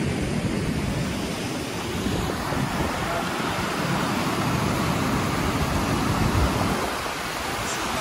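Steady rushing of water pouring through a concrete dam spillway into churning white water below.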